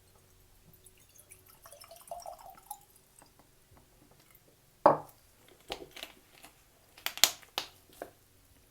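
Water poured briefly into a pot, rising in pitch as it fills, then a few sharp knocks and clinks of kitchenware, the loudest about five seconds in.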